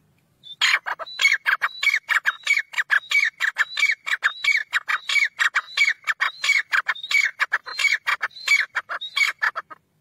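Grey francolin calling: a long, fast run of repeated high notes, about five a second, starting about half a second in.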